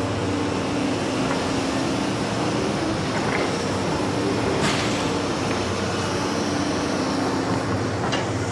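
Large demolition excavator's diesel engine and hydraulics running steadily as the sorting grab swings over rubble, with a sharp knock about halfway through.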